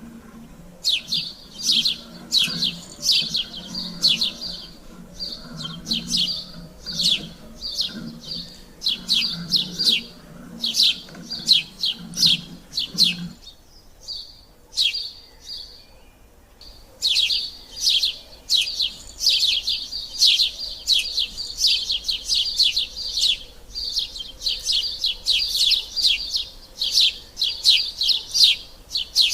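Sparrows chirping in quick, continuous runs of short chirps, with a pause of a few seconds about halfway through before the chirping starts up again. A faint low hum under the first half stops at the pause.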